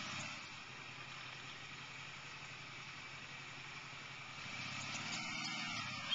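Honda Nighthawk 250's parallel-twin engine running low, then revved up again about four and a half seconds in as the rider goes for a burnout.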